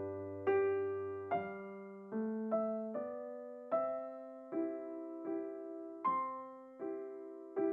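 Background music: a slow, gentle piano melody, single notes and soft chords struck at an even pace, about one a second, each left to ring and fade.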